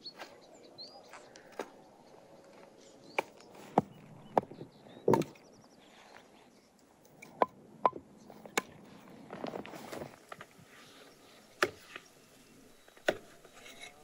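Split firewood logs knocking against each other as they are picked up and stacked into an armful: a string of sharp wooden clunks at uneven intervals.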